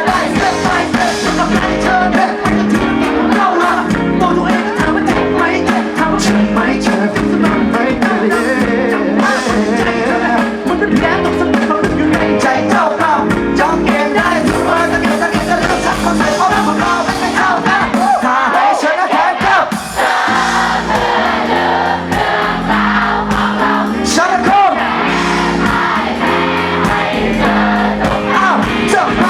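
Live pop-rock band performance with singing: guitars, bass and drums under a vocal melody, playing continuously at a loud level.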